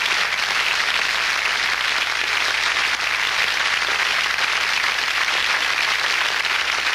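Studio audience applauding steadily, an even wash of many hands clapping.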